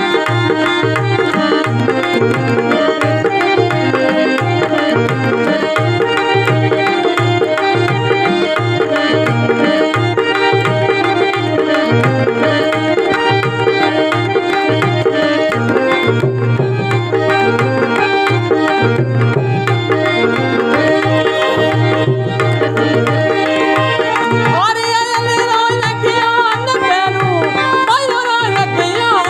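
Instrumental interlude of Marwari devotional folk music: a hand drum keeps a steady rhythm under a sustained melody line. Near the end a gliding melody enters over it.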